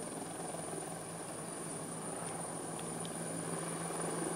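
Distant helicopter heard as a faint, steady rotor and engine drone, growing slightly louder near the end as it comes back toward the listener.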